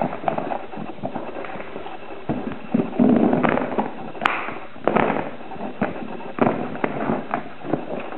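Knives and their cases being handled: irregular clicks and knocks, a louder rustle and clatter about three seconds in, and one sharp click a little after four seconds.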